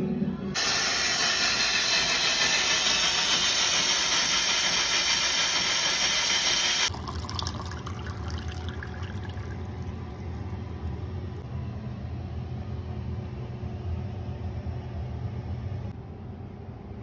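A loud steady hiss starts about half a second in and cuts off sharply near seven seconds. A quieter steady noise with a low hum follows.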